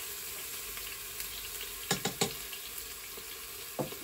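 Minced garlic sizzling steadily in hot olive oil in the inner pot of a Crockpot Express multicooker on its sauté setting, with a few sharp clicks of utensil against the pot about two seconds in and near the end.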